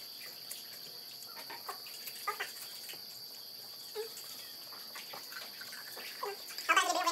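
Steady high-pitched trill of crickets, with a few faint taps and knocks of glasses and hands at the table.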